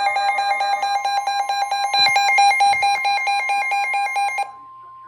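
Electronic alert alarm sounding loudly: a fast, warbling electronic beep pattern that cuts off abruptly about four and a half seconds in. A fainter steady tone holds on after it stops.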